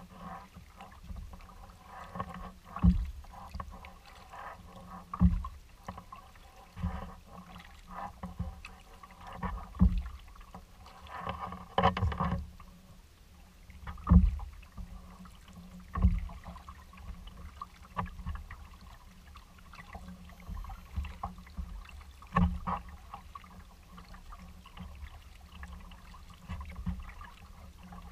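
Kayak paddling on calm water: a low thump from the paddle strokes about every two seconds, with faint water noise between them.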